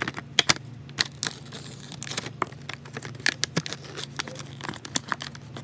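Irregular crinkling and crackling, many small sharp clicks, as a slime container and its packaging are opened and handled.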